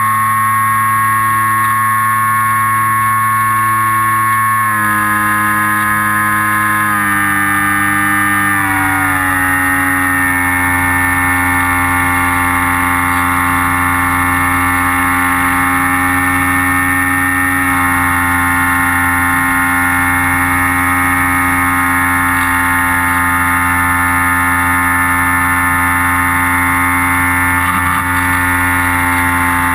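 FPV model aircraft's motor and propeller running steadily, heard from the onboard camera. Its pitch steps down a few times between about 5 and 9 seconds in, as the throttle is eased back, and then holds steady.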